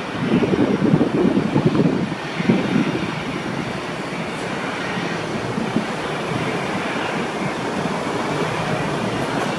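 Airbus A320 airliner's jet engines running as it rolls along the runway before takeoff: a continuous low rumble with a faint whine above it, uneven for the first couple of seconds, then steady.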